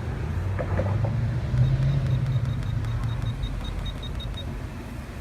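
Steady low rumble of a vehicle engine running, with a quick run of faint, high electronic beeps for about three seconds in the middle.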